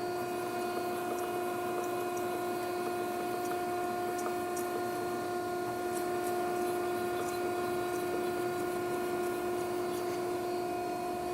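2014 Okamoto ACC-1224EXB surface grinder running with its hydraulics and grinding wheel on: a steady, even machine hum with a clear tone and its overtone, not changing.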